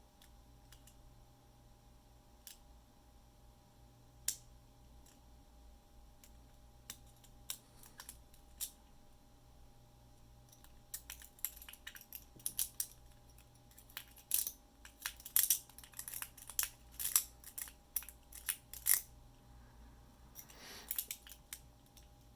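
Metal lock pick working the wafers inside a 10-wafer padlock: scattered small clicks at first, then a rapid run of clicks and scrapes for about eight seconds, and a short scrape near the end, over a faint steady hum.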